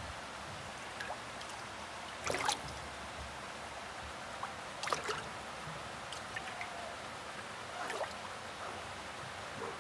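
Steady trickling of water in a fish tank holding salmon trout, with three short splashes about two and a half, five and eight seconds in as the fish stir the surface.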